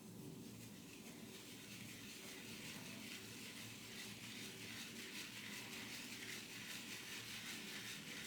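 Vie-Long 13071 horse-hair shaving brush, a mane and tail mix, being swirled over a puck of hard shaving soap to load it. It makes a soft, fast, rhythmic scratching hiss that grows gradually louder as the soap starts to lather.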